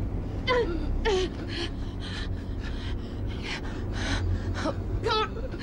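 Frightened people gasping and panting, about two sharp breaths a second, with short falling cries near the start and again near the end, over a steady low rumble.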